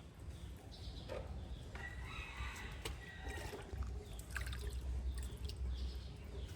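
A rooster crows once, about two seconds in, over light water splashing and dripping.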